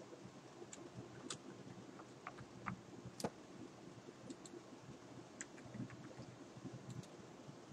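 Faint computer keyboard keystrokes: about a dozen separate clicks at an uneven typing pace, over a faint steady hum.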